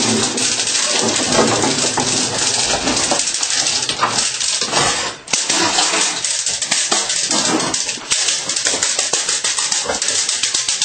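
Belgian Malinois pup at bitework play: a dense run of scuffles and clicks as it scrambles on the hard kitchen floor, with some dog sounds mixed in, dipping briefly a little after five seconds.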